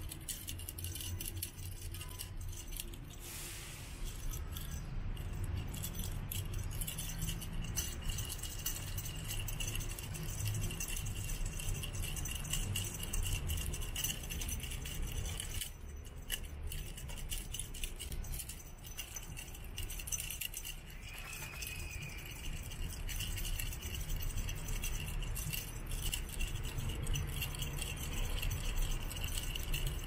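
Light rattling and jingling from a shaken feather wand cat toy, many small clicks throughout, over a steady high buzz.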